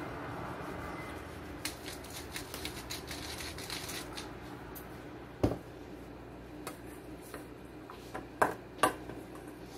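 A hand pepper mill being twisted over a stainless steel bowl of salad: a quick run of small crackling clicks. About five seconds in comes a single sharp knock, then a few scattered clicks.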